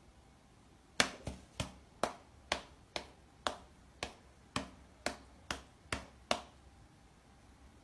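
A Bengal cat's paw patting against a person's open palm as it swats at the hand. It makes about a dozen sharp slaps, roughly two a second, that stop about six seconds in.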